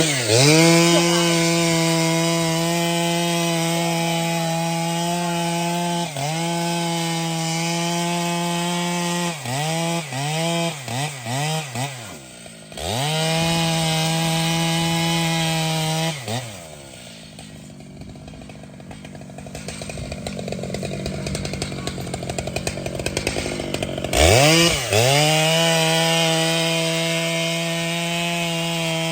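Large two-stroke chainsaw running at full throttle, with several quick throttle blips about ten seconds in. It drops to idle around the middle and revs back up near the end.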